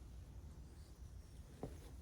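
Near silence: a faint low hum of room tone, with one light click near the end.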